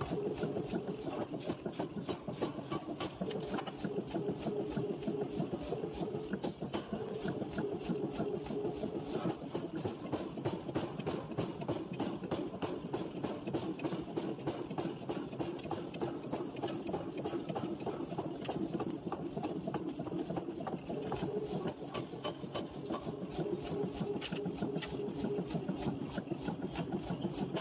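Forging-shop machinery running steadily: a constant mechanical hum with a dense, fast rattle of ticks and no separate heavy blows.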